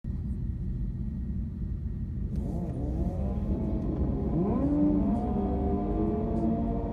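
V8 engines of a Lexus IS F and a supercharged Ford F-150 Lightning at the drag-strip start line: a low idle rumble, then from about two seconds in a series of revs rising and falling, settling into a steadier raised engine note near the end as they wait to launch.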